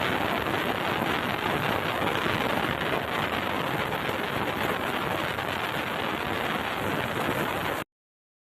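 Steady rush of water in a stainless steel bottle washing machine, an even hiss with no rhythm that cuts off abruptly near the end.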